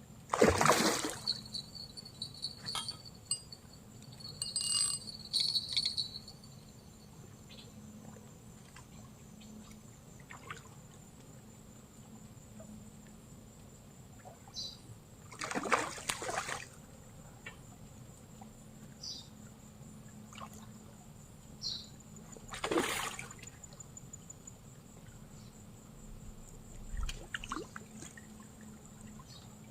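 Water's-edge ambience: three short water splashes, the first near the start, over a steady high insect buzz, with a few brief high chirps in the first seconds.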